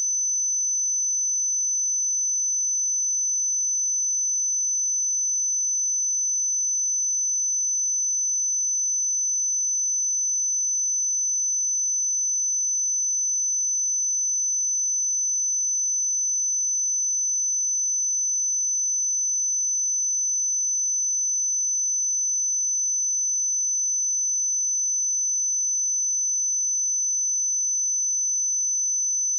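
A pure 6063 Hz sine-wave test tone, one steady high-pitched whistle-like tone held at a constant level, used to test speakers and headphones.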